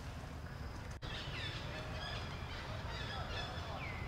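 Short, high chirping calls, several sweeping downward, over a steady low rumble of background noise, with a brief dropout in the sound about a second in.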